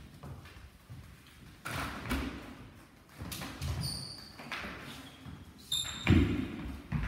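Halberds knocking and scraping against each other, with short metallic clinks of the steel heads that ring briefly, about four seconds in and again near the end. Feet shuffle on the hall floor, and a heavy thud just after the second clink is the loudest sound.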